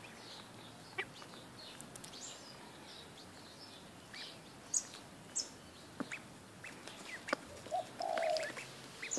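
Indian runner ducklings peeping, a scatter of short high calls, with a few sharp clicks and small splashes as they dabble at the water. A lower, louder call comes about eight seconds in.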